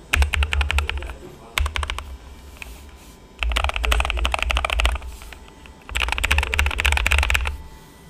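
Fast typing on a NuPhy Air75 V2 low-profile mechanical keyboard fitted with Cowberry switches, the keys clacking in four quick bursts with short pauses between. The typing stops shortly before the end.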